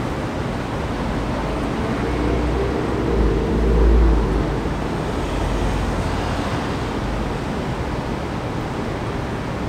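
Steady street traffic noise at an intersection, with a low rumble that swells about three seconds in and fades out about two seconds later.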